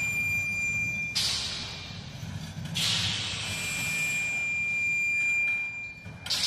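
Sound score of a live stage show: three sudden hissing, crash-like hits, each fading over a second or so, with a thin high ringing tone held under some of them.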